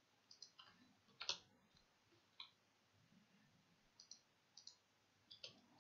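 Faint, scattered clicks of a computer keyboard and mouse as a text file is edited, about a dozen, some in quick pairs, the loudest about a second in.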